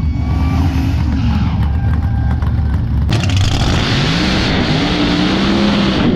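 Drag cars doing burnouts: engines held at high revs while the rear tires spin and smoke, the engine note rising and falling. About three seconds in, a second car takes over with a harsher sound and a heavy hiss of spinning tires, its engine note climbing.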